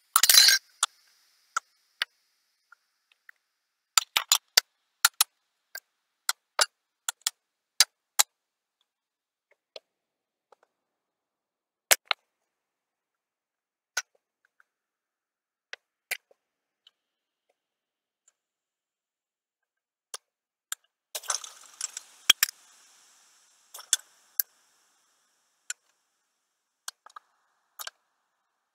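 Aluminium soda cans clicking and clinking as they are set one on top of another, in scattered sharp taps with pauses between. A quick run of taps at the very start, and a longer flurry of taps with rustling about three-quarters of the way through.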